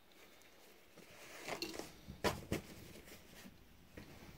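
Faint rustling of a paper towel being handled, with two short sharp clicks a little past the middle.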